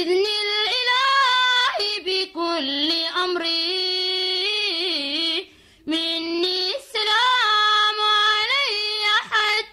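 A woman singing an Arabic Sufi nasheed solo and unaccompanied, in long melismatic phrases with wavering pitch and short breaks between them.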